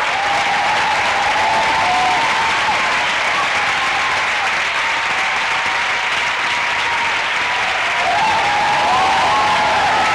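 A large theatre audience applauding steadily after the final line of a performance. Cheering voices ride over the clapping near the start and rise again near the end.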